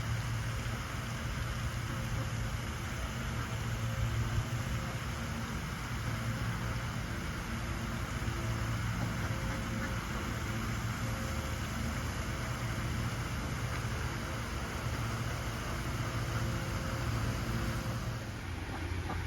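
A steady low engine-like hum with an even hiss above it, easing slightly near the end.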